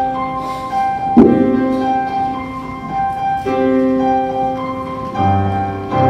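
Piano music playing a series of held chords, with a sharp accented chord about a second in; deeper bass notes come in near the end.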